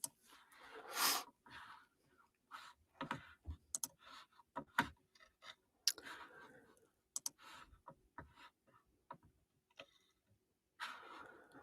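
Faint, scattered clicks and taps of a computer keyboard and mouse, with a few soft breaths between.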